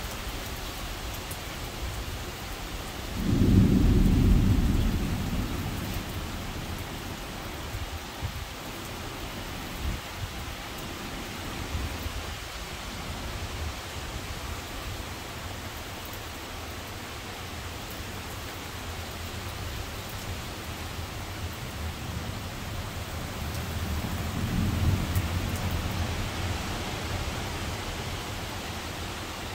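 Heavy rain falling steadily in a thunderstorm, with a loud low rumble of thunder about three seconds in that fades over a couple of seconds, and a weaker rumble near the end.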